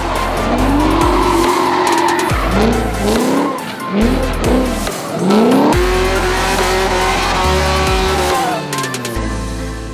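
Drift cars' engines revving hard with tyres squealing, the pitch climbing and dropping in a string of quick rev bursts, then held high before falling away near the end. Background music with a steady bass runs underneath.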